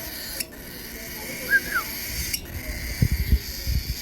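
A caged pet bird gives a single short chirp that rises and falls, about one and a half seconds in. Low bumps and rumble come near the end.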